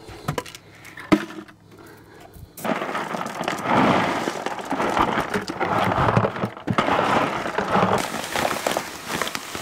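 Gravel poured from a bucket into a filter box: a dense rattling clatter of many stones landing, starting about two and a half seconds in and lasting about five seconds, after a couple of single clicks.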